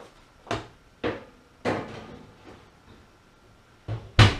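A metal baking tray being put into an oven: three sharp knocks and clatters of the tray going onto the shelf in the first two seconds, then the oven door shut with two quick knocks near the end, the second the loudest.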